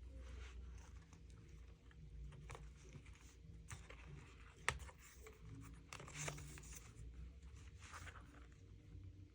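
Faint rustling and tearing of a paper or plastic cash envelope being handled and fitted into a binder, with a single sharp click about four and a half seconds in.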